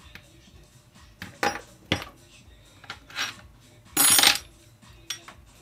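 Metal hand tools clinking against each other on a workbench: several separate clinks, then a louder clattering rattle about four seconds in, and a couple of light clicks near the end.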